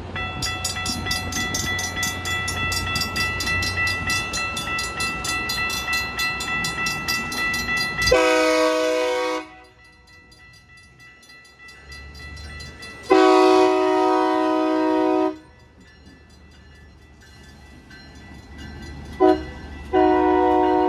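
Grade-crossing warning bell ringing rapidly. Then a diesel locomotive's air horn sounds the standard crossing signal: two long blasts, a short one, and the final long blast starting near the end. A low engine rumble runs underneath.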